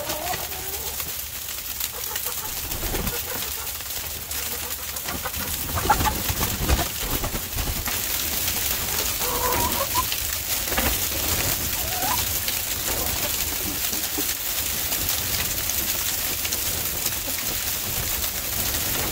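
Chickens clucking and calling in a few short scattered bursts, over a steady hiss of freezing rain coming down.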